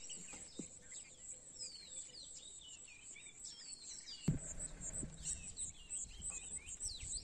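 Birds chirping and calling with a steady high insect buzz behind them. One dull thump comes about four seconds in.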